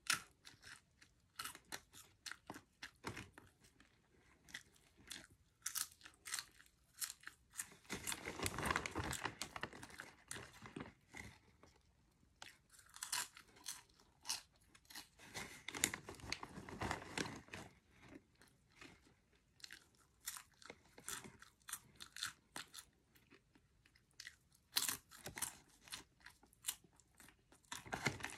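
Cheddar cheese popcorn being chewed close to the microphone: a long run of crisp crunches, with heavier, denser chewing in two stretches.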